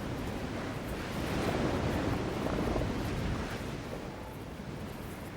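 Ocean surf washing on a beach, a wave swelling about a second in and easing off after about three seconds.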